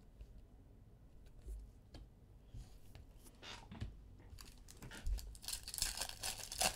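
Foil trading-card pack wrapper torn open and crinkled by hand, with a few light handling clicks first and the crinkling growing denser and louder in the last second and a half.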